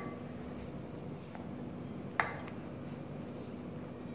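A measuring cup clinks once against a glass mixing bowl about two seconds in while pancake batter is scooped, over a faint steady hum.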